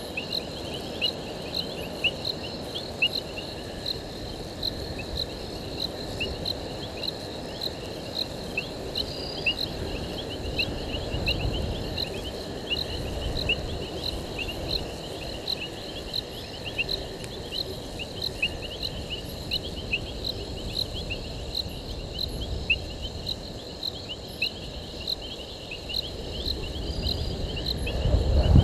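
Night chorus of crickets: many short, high chirps repeating steadily, over a low rumbling background that swells near the end.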